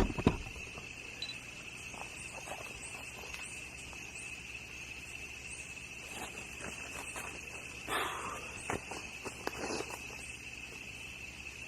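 Insects trilling steadily in a high, even drone, with faint repeated high chirps over it and a few soft knocks and rustles about six to ten seconds in.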